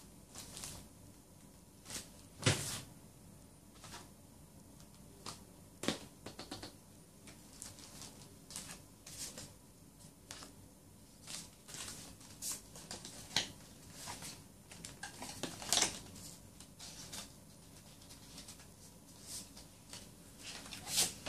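Paper album sleeves and packaging being handled on a table: irregular rustling, crinkling and light taps, with a few louder knocks as items are set down.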